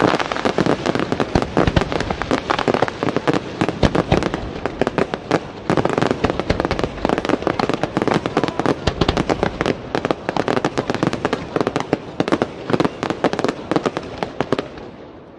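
Professional aerial fireworks display: a dense, rapid barrage of launches and bursts, many sharp pops and bangs in quick succession. The barrage thins out and fades near the end.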